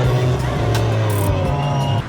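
Music with a steady low drone.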